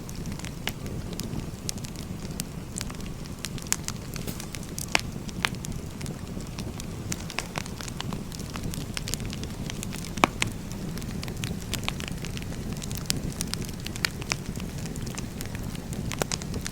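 Burning firewood crackling: scattered sharp pops and snaps over a steady low rush, the loudest pop about ten seconds in.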